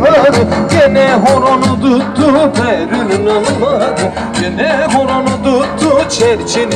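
Loud Turkish folk dance music with a steady beat and a wavering, ornamented lead melody.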